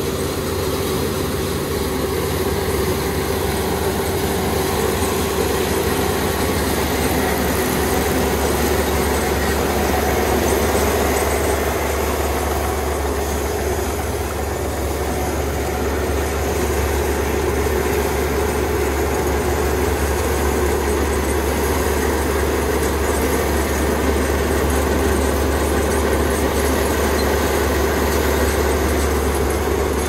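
Kubota rice combine harvester running steadily while cutting rice: its diesel engine and cutting and threshing machinery make a continuous low drone with a steady mid-pitched tone above it.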